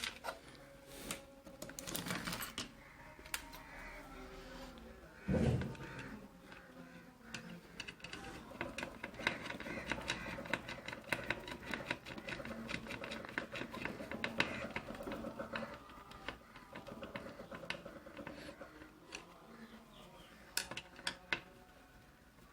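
Nuts being fitted and tightened onto a juicer motor's mounting: a run of small clicks and rattles, rapid in the middle, with one heavier thump about five seconds in.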